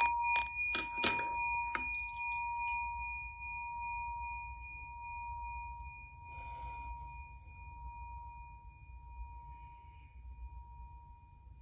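A metal bowl bell struck once with a striker, ringing with several clear, steady tones that fade slowly over about ten seconds, with a few sharp clicks in the first second or two. Faint breathing about six seconds in.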